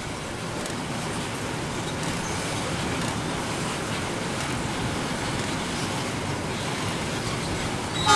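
Steady running noise of a diesel locomotive hauling loaded coal hopper wagons, with no distinct tones; the locomotive's horn starts at the very end.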